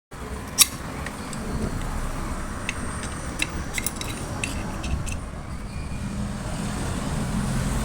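Steady low rumble of road traffic, with a scatter of sharp metallic clicks and taps of hand tools on a motorcycle engine, the loudest about half a second in.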